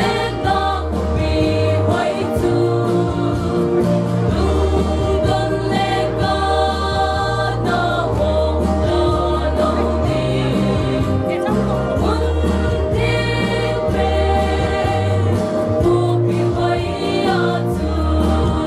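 Mixed church choir singing a gospel hymn in harmony, over an instrumental accompaniment with a held bass line that changes note every second or two.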